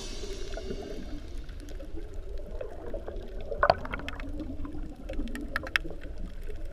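Underwater sound heard through a GoPro's housing: a scuba diver's exhaled bubbles gurgling, with scattered clicks and a louder pop a little over halfway through.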